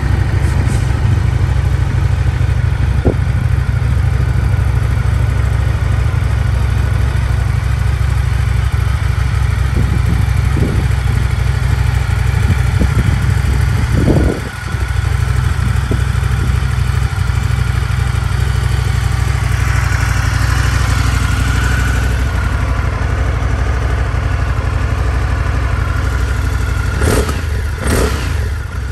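2019 Indian FTR 1200's V-twin engine idling steadily through its stacked twin exhausts, with two quick throttle blips near the end.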